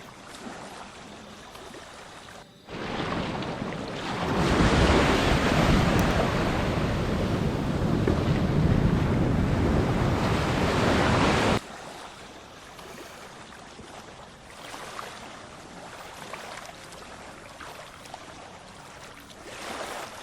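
Sea waves washing over a shallow reef, with wind on the microphone. The noise swells to a loud rush a few seconds in and cuts off abruptly past the middle, leaving quieter surf.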